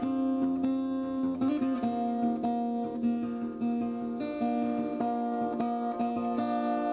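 Acoustic guitar music, plucked notes over held chords at a steady pace.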